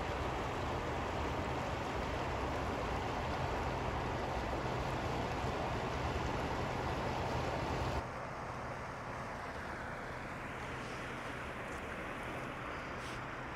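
Steady rushing wash of a river flowing over rocks. It is fuller and louder at first, then drops abruptly to a softer, thinner wash about eight seconds in.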